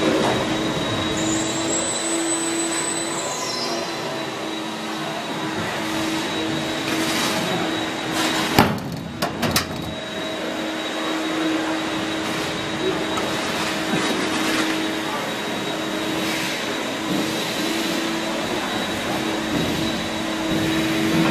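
Steady hum and noise of running machinery, with a steady low drone. A sharp knock and a few clicks come about nine seconds in.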